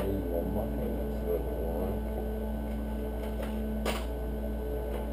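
A steady electrical hum, with a single sharp metal click about four seconds in as tools are handled in an open steel tool-chest drawer.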